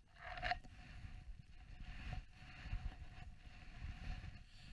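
Wind buffeting the action camera's microphone: an uneven low rumble, with a brief rustle about half a second in.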